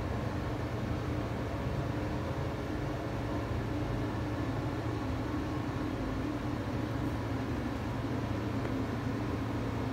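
A machine running with a steady low hum under an even rushing noise.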